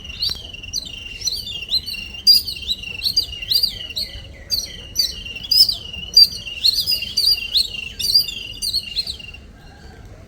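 Weaver birds chirping in a rapid, busy chatter of short, sharp notes that overlap one another. The chatter stops about nine and a half seconds in.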